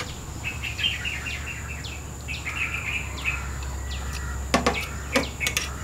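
Small birds chirping repeatedly in quick, falling notes over a steady high insect drone, with a few sharp clicks of cutlery against plates in the second half.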